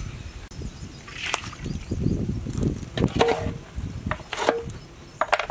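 A metal ladle knocking and scraping against a large metal cooking pot, with a series of sharp clanks. Two of the knocks, about three seconds in and again about a second later, ring briefly.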